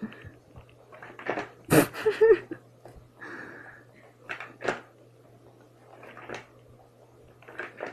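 A swivel seat with a cat riding on it, being spun: irregular knocks and rattles, with a sharp knock about two seconds in and a brief squeak a little later.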